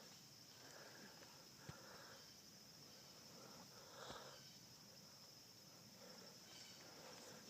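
Near silence: faint steady outdoor background hiss, with two faint brief clicks.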